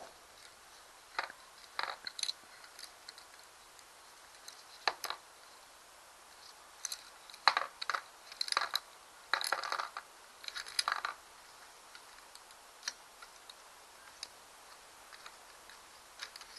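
Small steel bearing parts clicking and clinking as they are handled, from a needle roller bearing on a Mercury 90 hp outboard crankshaft being taken apart. Scattered single clicks, with a run of quick rattling clinks in the middle.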